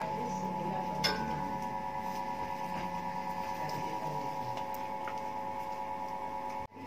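Steady machine hum of a few fixed tones with a fast, faint ticking running through it, and a couple of light clicks early on; the sound cuts off just before the end.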